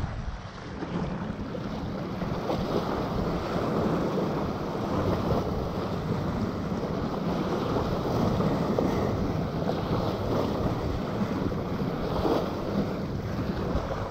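Wind blowing over the microphone at the seaside: a steady rushing noise that rises and falls a little in strength.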